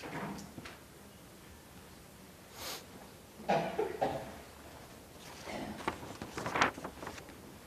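Scattered short coughs and throat noises from people in a quiet room, the loudest about three and a half and six and a half seconds in.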